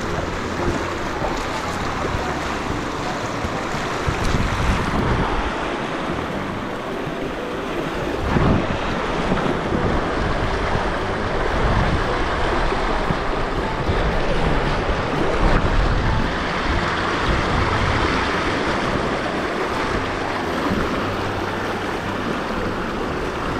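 Fast river water rushing over boulders in a shallow riffle, a steady loud wash, with gusts of wind buffeting the microphone in uneven low rumbles.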